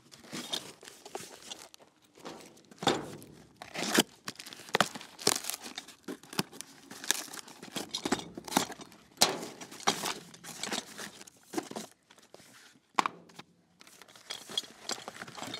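Cardboard box and packing paper being rummaged through and torn open by hand, with irregular rustling, crinkling and tearing as parts are pulled out.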